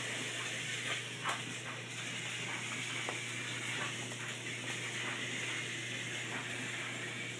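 Plastic toy trains being handled and pushed along plastic track: scattered faint clicks and knocks, a sharper one about a second in, over a steady hiss and low hum.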